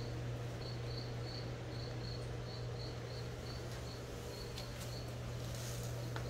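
A cricket chirping in short, evenly repeated high chirps, about three a second, over a steady low hum.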